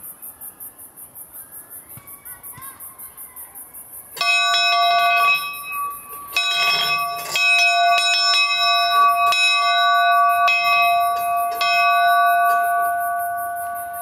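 Hanging bell in an open ring-shaped frame, rung by pulling its rope: from about four seconds in it is struck again and again, around seven strokes in ten seconds, far more than three, each stroke ringing on into the next. Before the first stroke only a steady pulsing insect chorus is heard.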